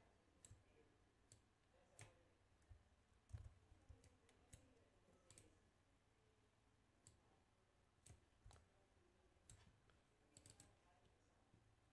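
Faint, irregular computer mouse clicks, scattered singly with a quick flurry of several near the end, over quiet room tone.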